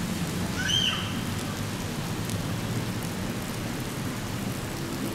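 Heavy tropical downpour, a steady hiss of rain falling on a wet paved plaza, with a brief high chirp about a second in.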